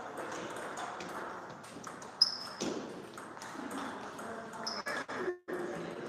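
Table tennis rally: the ball clicks off the paddles and the table in quick succession. Two hits ring out louder than the rest, one about two seconds in and one just before five seconds.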